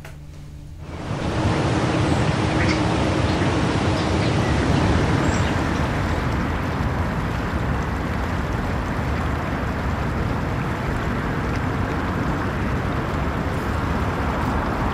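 A steady rushing noise sets in about a second in and holds level, with no tones or rhythm in it.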